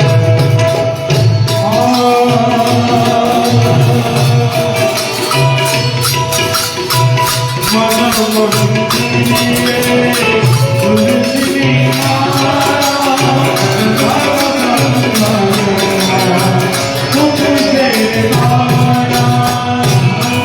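Devotional folk song: a melody with singing over jingling percussion and a steady bass beat.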